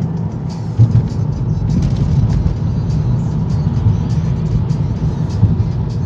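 A car on the move, its engine and road noise a deep, steady rumble, with music playing over it.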